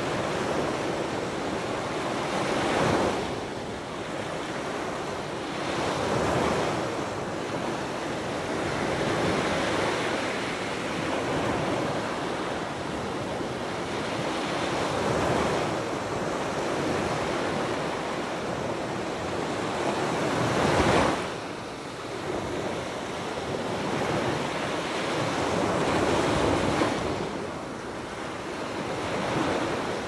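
Small Gulf of Mexico waves breaking and washing up a sandy beach in a continuous hiss of surf, swelling every few seconds as each wave comes in. The biggest wash comes about two-thirds of the way through and drops off sharply.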